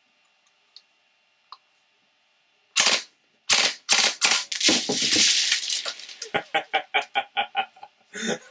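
FGC6FA fully automatic open-bolt airsoft gas-blowback replica firing: a short burst about three seconds in, then a longer full-auto burst of about two and a half seconds. After that a man laughs in short even bursts.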